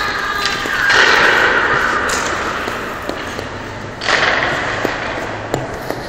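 Two sudden bangs echoing around an ice rink arena, about a second in and again about four seconds in, over a steady rink hiss, with a few light clicks near the end.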